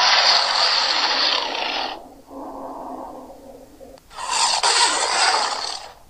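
Giant crocodile monster sound effects: a long, harsh hiss that cuts off about two seconds in, a quieter, lower breathy rasp, then a second harsh hiss of nearly two seconds.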